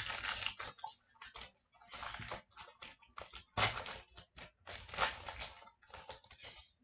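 Foil wrapper of a hockey card pack crinkling and tearing open by hand, in irregular crackly bursts with short gaps between.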